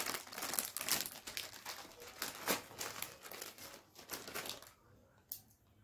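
Plastic Lay's chip packet crinkling and rustling as it is handled, dense for the first few seconds and then tailing off.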